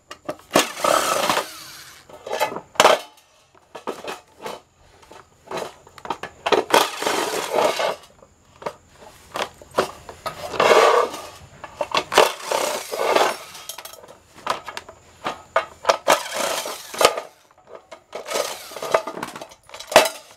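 A white plastic appliance housing being taken apart with a screwdriver and handled: irregular bursts of plastic scraping, rattling and clattering, with sharp clicks in between.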